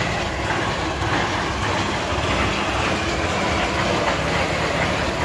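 Steady engine-like rumble with a hiss over it, unchanging.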